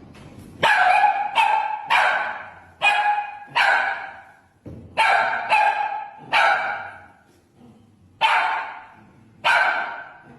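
A dog barking, about ten barks in three runs of five, three and two, each bark trailing off briefly.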